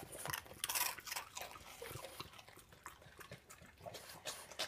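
French Bulldog crunching a crouton: a quick run of sharp crunches, loudest and busiest in the first second or so, then lighter chewing crunches.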